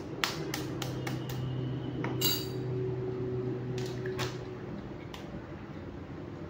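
Metal spoon clinking against a small dish: a quick run of about five taps, then a few scattered clinks, over a steady low hum.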